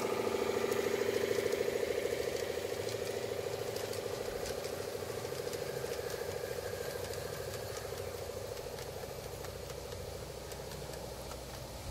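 G-scale model diesel locomotive and its train running past on garden track: a steady mechanical hum with a rapid flutter, loudest a second or two in and fading as the train moves away, with light clicks from the wheels on the rails.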